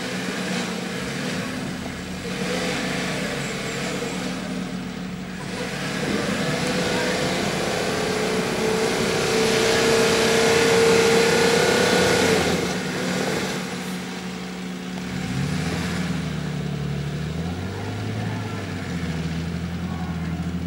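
Nissan Patrol 4x4's engine revving under load as it climbs through deep mud, building to its loudest about halfway through, then the revs drop back to a lower steady note.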